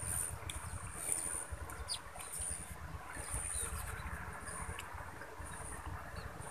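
High, thin insect chirping that comes and goes in short repeated trills, over a low rumble.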